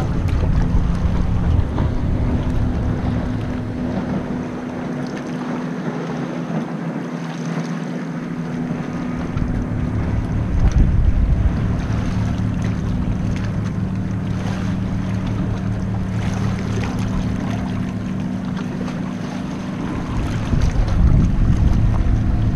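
Wind buffeting an action camera's microphone at water level while a kayak is paddled along rocks, with water sloshing against the hull and rocks. The wind rumble eases for a few seconds about five seconds in; a steady low hum runs underneath.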